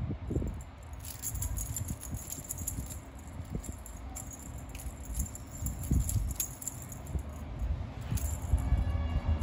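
Small metal bell on a dangling cat teaser toy jingling as the toy is waved and batted, over low bumps from handling. The jingling starts about a second in and keeps going with a brief lull near the end.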